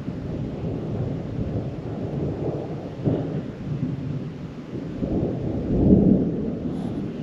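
Rolling thunder rumbling low and continuously. It peaks briefly about three seconds in and swells to its loudest around six seconds in.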